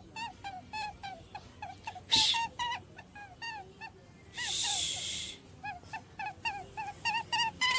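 A small animal making short, high-pitched squeaky calls, each rising and falling, several a second. About two seconds in there is one sharp, loud rustle or knock, and from about four and a half to five seconds a hissing rustle.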